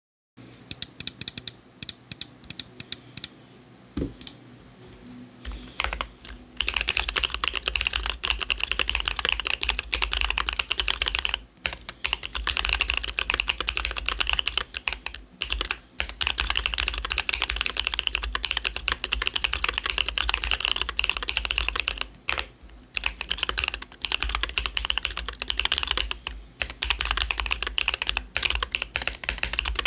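Typing on a Keychron Q3 Pro SE mechanical keyboard with stock Keychron K Pro Banana tactile switches, dye-sub PBT keycaps and foam and tape-modded internals. A few scattered keystrokes and a thud in the first seconds, then fast, continuous typing with a few short pauses.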